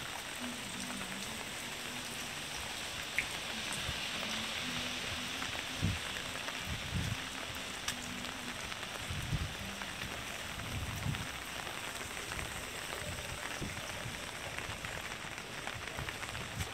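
Steady rain falling on wet pavement, an even hiss of drops, with scattered low thumps throughout. A faint low hum runs under the rain for about the first half.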